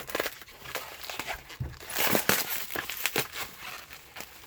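Packaging being handled: crinkling and rustling with several sharp clicks, the loudest rustle about two seconds in.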